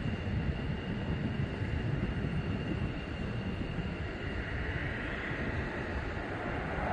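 Jet engines of McDonnell Douglas F-15C Eagles running on the runway: a steady low rumble with a thin high whine, and a rushing noise that grows louder near the end.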